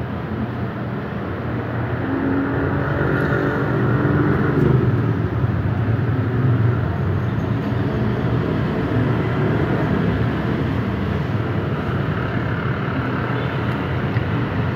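Motor-vehicle traffic: a vehicle engine running over a steady traffic hum, growing louder about two seconds in and passing around four to five seconds in.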